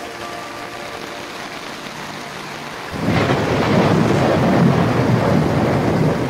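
Steady rain falling on the lake and the boat's cockpit tent. About three seconds in, a much louder rough rushing rumble suddenly takes over and runs on.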